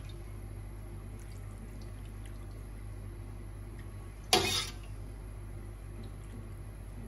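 A ladleful of vinegar pickling liquid poured into a clay dish of fried mackerel, giving one brief splash about four seconds in. A steady low hum runs underneath.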